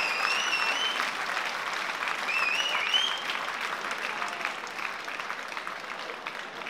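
Fight crowd clapping and cheering, with shrill whistles near the start and again about two and a half seconds in; the applause dies down over the last few seconds.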